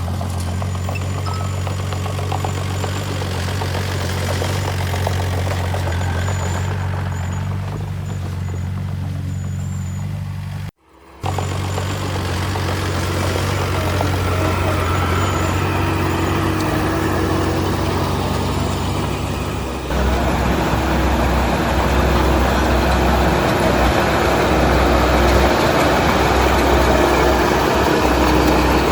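Diesel engine of heavy earthmoving machinery running steadily. The sound drops out for a moment about 11 seconds in, and about 20 seconds in it switches abruptly to a lower, rougher engine sound.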